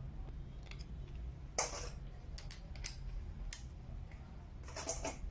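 Scattered light clicks and small metallic rattles of screwdriver bits being handled while a driver bit is changed. There is a cluster of sharper clicks about one and a half seconds in and another near the end.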